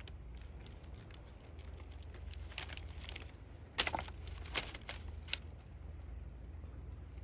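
A few sharp clicks and clinks of food and utensils being handled, the loudest about four seconds in, over a low steady rumble.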